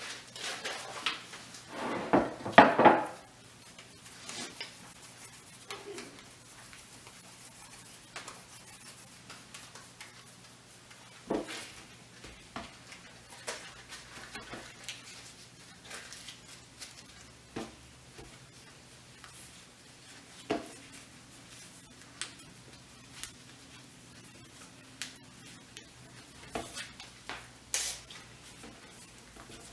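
Corn husks rustling and crackling as dough is wrapped in a husk and tied, with scattered light taps and clicks against a wooden table. A louder burst of handling noise comes about two seconds in.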